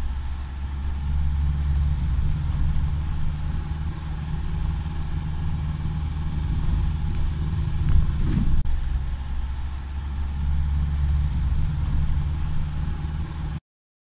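Car engine and road noise heard from inside the cabin while driving: a steady low rumble, with one brief thump just past the middle. It cuts off abruptly shortly before the end.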